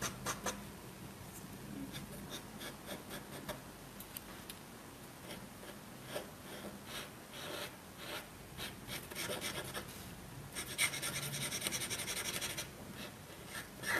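Paint marker being rubbed back and forth across paper to fill in a solid black area, a sound the artist calls unpleasant. A quicker, louder run of strokes starts about ten and a half seconds in and lasts about two seconds.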